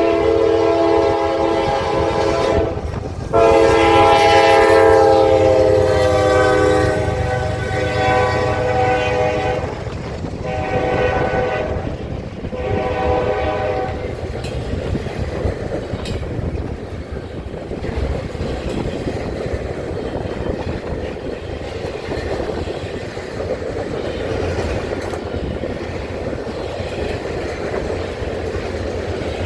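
Norfolk Southern locomotive #4546 sounding a loud multi-tone air horn as it passes at speed. There is a first blast, a short break, then a long blast whose pitch falls slightly, then two shorter blasts ending about fourteen seconds in. After that the train's cars rumble and clack past on the rails.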